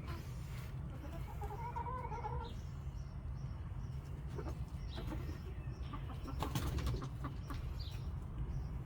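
Backyard chickens clucking, with one longer wavering call about a second in and a cluster of clicking, rustling sounds near the end. A steady low rumble runs underneath.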